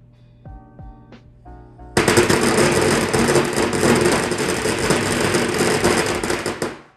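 A string of firecrackers going off about two seconds in: a rapid, continuous crackle of bangs that runs for about five seconds and stops suddenly.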